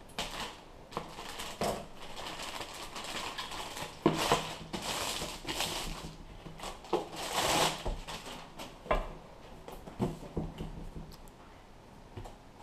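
Clear plastic bag crinkling and rustling as a cardboard product box is pulled out of it, with a few sharp knocks from the box being handled and turned over. The rustling is loudest near the middle and dies down in the last couple of seconds.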